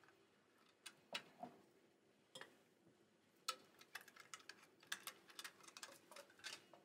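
Faint, irregular clicks and clinks of glassware and bar tools being handled on a bar counter, a few at first and then many close together over the last three seconds, over a low room hum.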